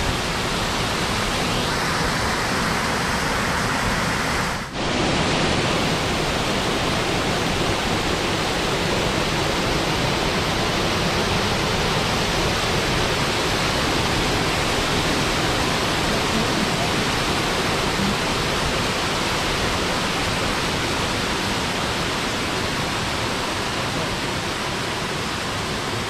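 Small waterfall pouring over mossy rock into a pool: a steady, loud rush of falling water, broken by a brief drop about five seconds in.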